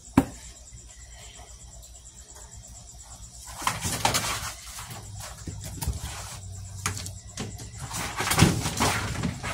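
Handling noise of a plastic tub as a lively tegu is put back into it: a sharp knock just after the start, then from about three and a half seconds in, irregular scuffling, scraping and rustling of plastic, claws and a lid.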